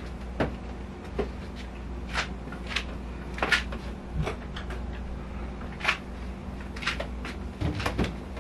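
Items being set down and moved about on the shelves of a kitchen fridge: a string of irregular knocks and clicks, a dozen or so, over a low steady hum.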